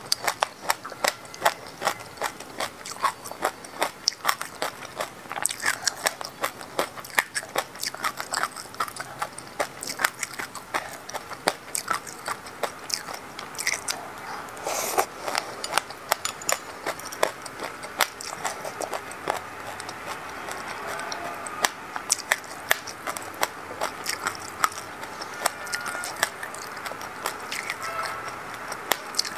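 Close-miked crunchy chewing of a mouthful of sesame seeds: many sharp, rapid crackles, dense in the first half and sparser later on.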